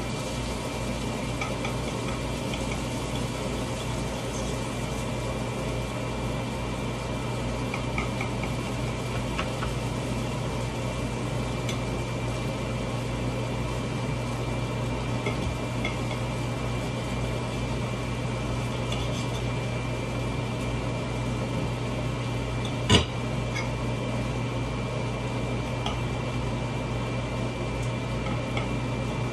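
Steady low hum of a kitchen appliance, with faint scattered clicks of handling and one sharp knock about three quarters of the way through.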